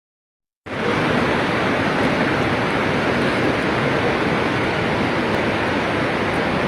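Heavy rain pouring down in a steady, loud hiss, starting about half a second in.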